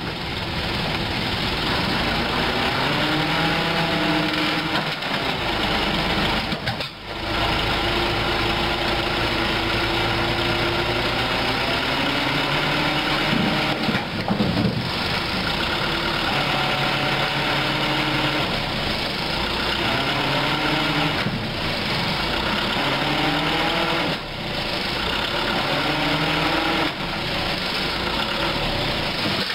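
Mitsubishi Colt dump truck's diesel engine held at raised revs to drive the hydraulic hoist tipping the rock-loaded bed, its note rising and falling. The engine sound dips briefly every several seconds.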